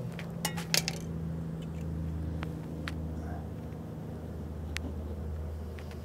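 A hive tool clicking and clinking against metal inside a pickup's wheel well as the last comb is cut out: a quick run of sharp clicks in the first second, then a few single ticks, over a steady low hum.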